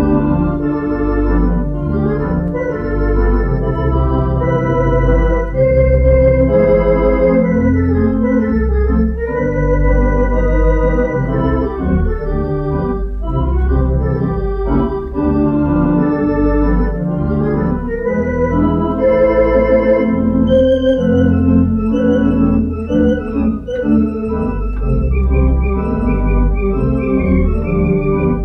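Virtual theatre pipe organ (Hauptwerk playing the Wonder Morton 4-manual, 32-rank sample set) played from a four-manual console: a tune in sustained chords over low pedal bass notes.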